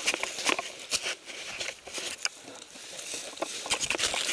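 Rustling of gear, clothing and dry brush close to the camera, with scattered irregular clicks and snaps.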